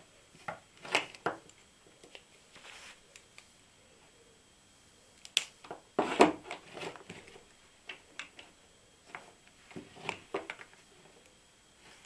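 Scattered clicks, snips and rustles of hand work on electrical wire with wire cutters, with a louder clatter of knocks about six seconds in.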